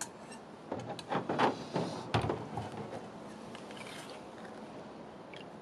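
Kimchi-jjim broth slurped from a spoon in a few quick noisy sips between about one and three seconds in, with a single knock partway through.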